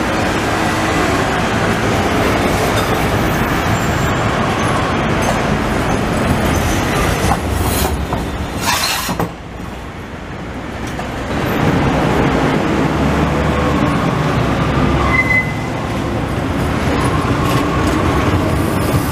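Articulated low-floor city tram running past close by on street track: a steady rumble of steel wheels on embedded rails, with a few short high wheel squeals.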